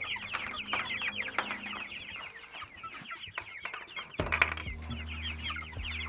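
A flock of young Cornish Cross broiler chicks peeping continuously, many short, high, falling peeps overlapping. A brief knock about four seconds in, then a low steady hum under the peeping.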